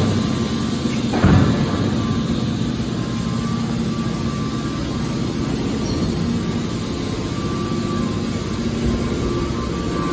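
Hydraulic scrap metal baler running, a steady hum from its hydraulic power unit, with one loud thump about a second in as the lid comes down.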